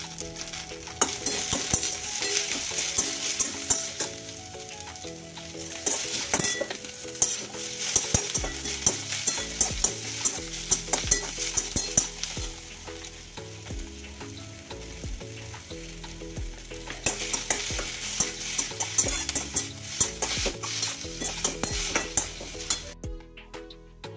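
Sliced onions, green chillies and mint leaves sizzling as they fry in a stainless steel kadai. A slotted steel spatula scrapes and clicks against the pan in bouts of stirring that ease off a couple of times.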